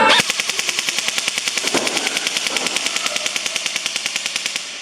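Electric BB gun (airsoft electric gun) firing on full auto: one long, rapid rattle of shots at about fifteen a second, stopping near the end.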